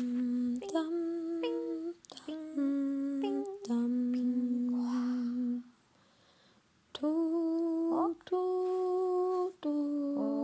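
A person humming a slow tune in long, held notes that step from pitch to pitch, with a short break about six seconds in and quick upward slides into some notes.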